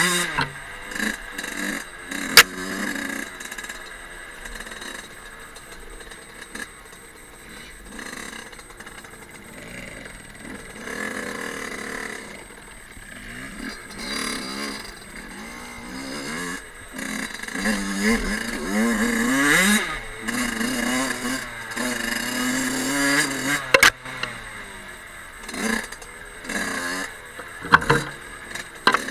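Small two-stroke 50 cc Fantic Caballero enduro engine revving up and down with the throttle, with a quieter stretch early on and busier revving in the second half. A few sharp knocks cut in, one near the start and two near the end.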